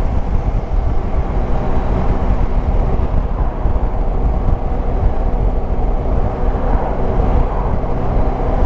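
Steady wind rush and road noise on a helmet camera while riding a Yamaha Tracer 9 GT motorcycle at speed, with its three-cylinder engine running evenly underneath.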